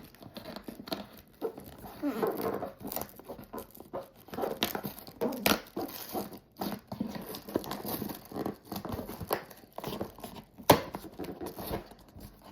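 A cardboard toy box being opened by hand: irregular tearing and crinkling of the cardboard and packaging, with a few sharp clicks, the loudest one late on.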